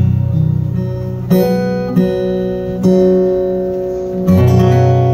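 Acoustic guitar played alone: five strummed chords about a second apart, each left to ring out.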